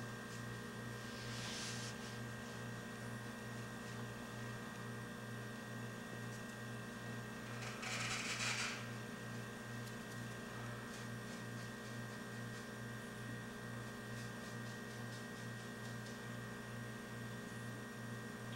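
Steady low electrical hum that wavers about twice a second, with a short soft hiss about eight seconds in and a fainter one near the start.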